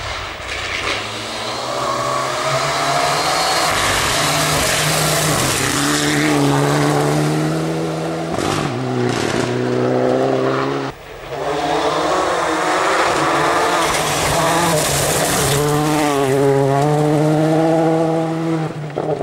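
Rally car engines at full throttle, pitch climbing and dropping back repeatedly as the cars change up through the gears, with tyre and road noise beneath. The sound breaks off abruptly about eleven seconds in and resumes with another car accelerating.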